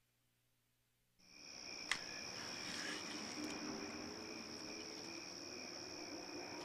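Crickets chirring in a night-time chorus, a steady high trill that fades in out of dead silence about a second in. A single faint click sounds about two seconds in.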